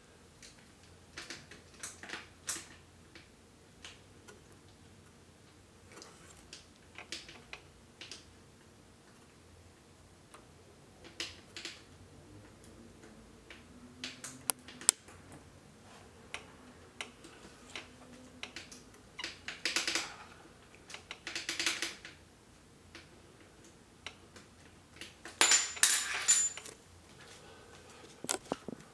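Scattered small metallic clicks, taps and scrapes of hand tools and parts being worked in a Singer 348 sewing machine's needle bar rocker arm assembly, with a few louder rattling bursts in the second half.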